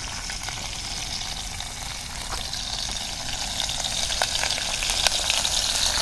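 Food frying in oil in a small steel camping pan over a gas canister stove: a steady sizzle with a few small crackles, growing louder in the last couple of seconds.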